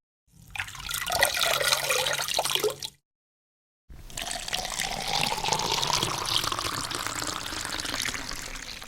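Water sound effects: a short bubbling, gurgling splash of water, a second of silence, then water running into a container with a tone that rises slowly as it runs.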